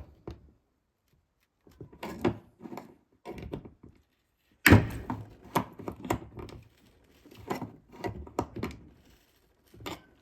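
Irregular knocks and clicks of a can's child-resistant plastic cap being pressed, twisted and banged while someone struggles to get it open, the loudest knock about halfway through.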